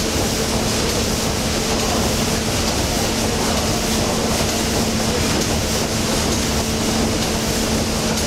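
Ship's triple-expansion reciprocating steam engine running in its engine room: steady mechanical noise with a constant low hum.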